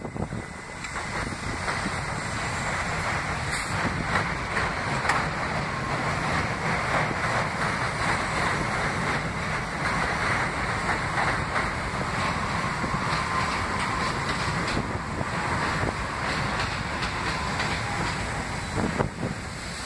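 R68 subway train running past on an elevated steel track: a steady rumble with the wheels clicking over rail joints.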